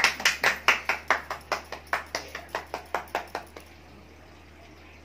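Hands clapping in a quick, even rhythm, about five claps a second, growing weaker and stopping about three and a half seconds in.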